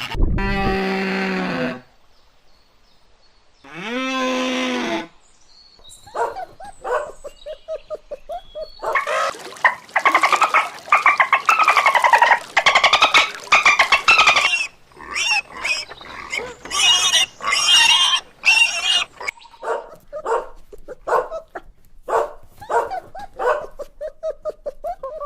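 A series of animal calls: a long low call, a shorter rising-and-falling one, then a dense stretch of high squealing in the middle, followed by shorter higher calls.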